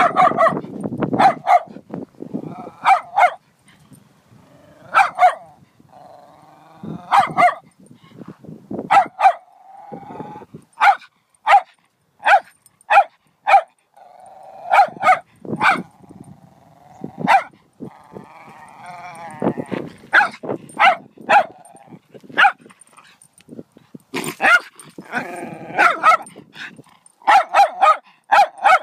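A small terrier barking at a spiny animal curled up in the grass, in quick runs of sharp barks. Between the runs come longer stretches of growling.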